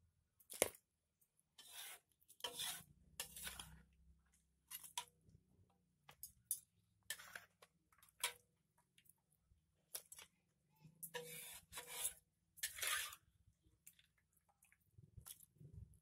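A metal utensil scraping and clattering against a wok in a series of short, irregular strokes, as cooked chicken is scooped out.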